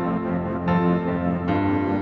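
Background music: a calm, slow piece of long held notes, with the chord changing twice.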